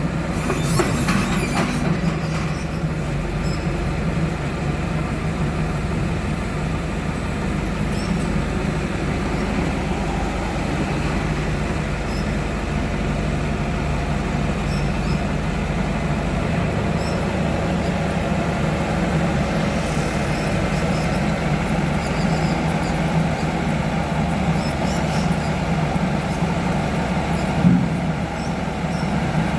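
Heavy diesel engine running steadily with a low, even drone. There is a short rattle about a second in and a single sharp knock near the end.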